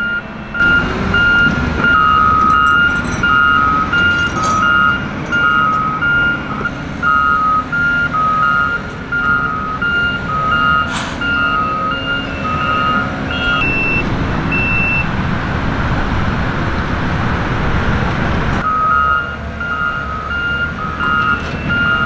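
Heavy earthmoving equipment's backup alarms beeping, two at slightly different pitches, over the diesel rumble of a motor grader grading dirt. The beeping stops about two-thirds of the way through while the engine noise swells, then starts again a few seconds before the end.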